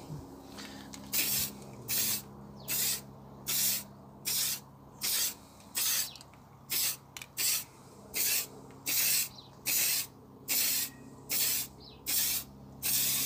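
Aerosol spray can of clear gloss yacht varnish being sprayed in short hissing bursts, about sixteen of them, each a fraction of a second long and a little under a second apart.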